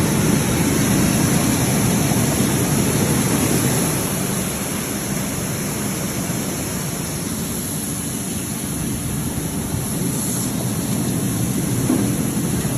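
Vegetable and fruit bubble washing machine running, its air blower pushing bubbles through the water tank: a steady rushing, churning noise of air and water.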